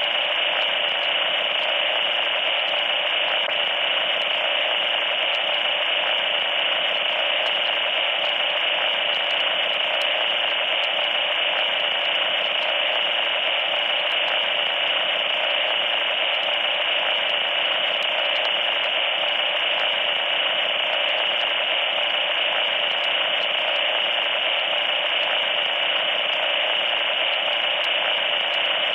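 Loud, steady static hiss with a thin high tone running through it. It sounds tinny, with almost no bass, and does not change.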